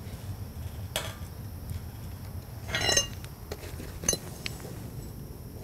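A steel wrench clinking on the threaded leveling feet of a steel-tube frame as they are adjusted: three separate metal clinks, about one, three and four seconds in, the middle one ringing briefly.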